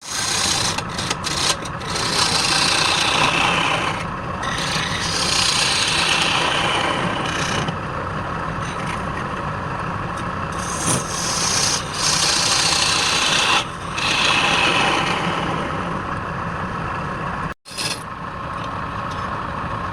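A turning tool scraping and cutting wood spinning on a woodturning lathe, in a run of passes. It is a continuous rasping scrape with short breaks between passes, and it cuts out abruptly for an instant near the end.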